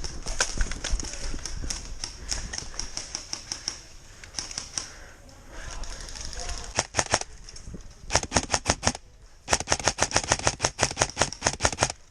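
Airsoft rifle firing in rapid full-auto bursts, a quick string of sharp clicking shots. There are softer scattered shots at first, a short burst about seven seconds in, then two longer bursts, the last lasting over two seconds.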